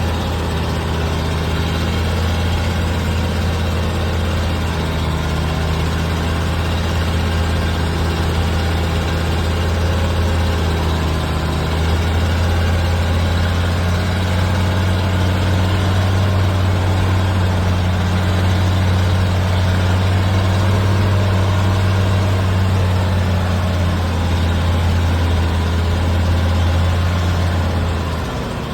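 Heavy diesel engine running steadily at low revs; its pitch steps up slightly about twelve seconds in and falls away near the end.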